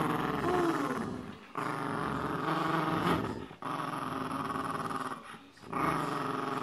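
Dog growling in a tug-of-war over a plush toy: long growls broken by short pauses about every one and a half to two seconds.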